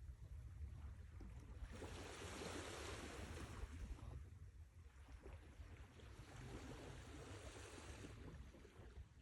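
Sea waves washing onto the shore, with two swells of hiss that rise and fall away, over a steady low rumble.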